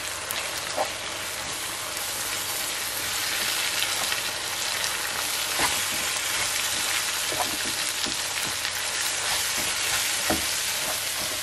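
Tomato-onion masala sizzling in oil in a nonstick frying pan while a wooden spoon stirs in freshly added ground spices. A few clicks of the spoon against the pan sound through the steady sizzle.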